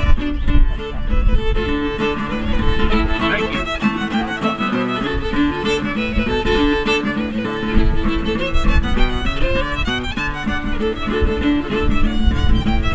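Instrumental music playing continuously, a melody of held and changing notes over a low bass.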